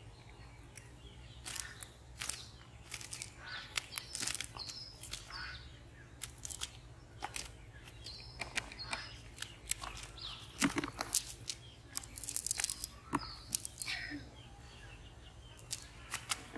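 Scattered rustling and sharp clicks as fish are picked out of a cast net by hand, with birds chirping in the background.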